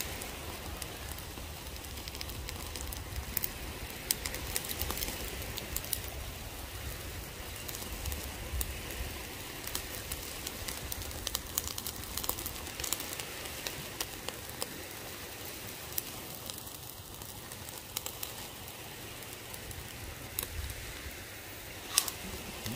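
Meat grilling over an open fire: a steady sizzle with scattered sharp crackles and pops, one louder pop near the end.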